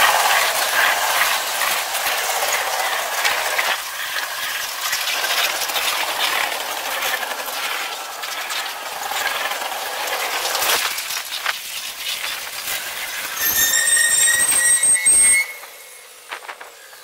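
Freight cars rolling past with wheel clatter and rattling, heard sped up, so it sounds thin and high with no deep rumble. Near the end a steady wheel squeal rings out for about two seconds, then the sound cuts off abruptly to a faint background.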